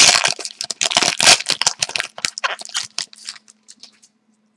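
Hockey card pack wrapper being torn open and crinkled by hand, a dense run of crackling that thins out and stops about four seconds in.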